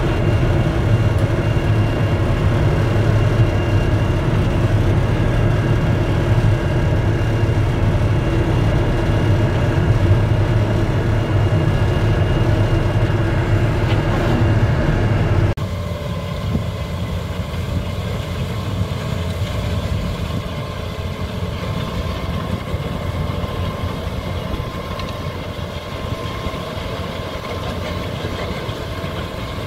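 Heavy snow-clearing machine's diesel engine running steadily. About halfway through, the sound drops abruptly to a quieter, steady engine sound.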